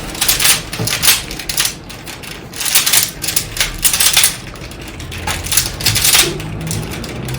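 Rubik's cube being turned fast during a timed speedsolve: a quick, irregular run of plastic clicks and clacks as the layers are spun.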